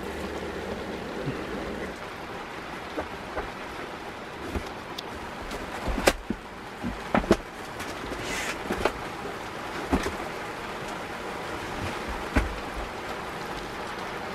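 Steady rain on a sailboat's deck and cabin top, heard from inside the cabin, with occasional sharp taps and knocks.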